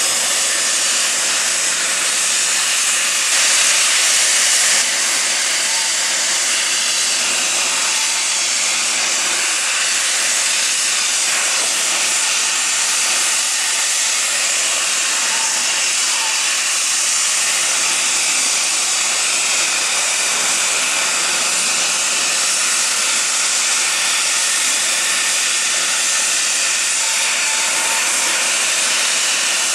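Steady, loud hiss and whine of a jet aircraft's turbine on the ramp, briefly a little louder about three to five seconds in.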